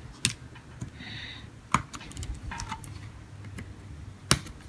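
Small laptop keyboard being pried up and handled with a screwdriver: its plastic keys and metal backing plate give three sharp clicks, one about every second and a half, a brief scrape about a second in, and a few lighter ticks.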